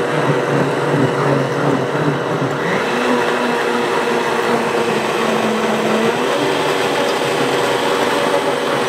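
Blendtec blender running steadily, its motor whirring as it blends a thin red chile sauce.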